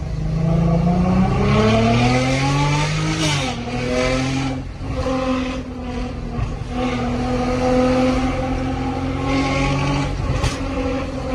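Range Rover Velar P380's supercharged 3.0-litre V6 through a Fi Exhaust valved cat-back exhaust, heard from inside the cabin while accelerating. The engine note rises in pitch, drops sharply at an upshift about three seconds in, climbs again and holds, then falls away near the end.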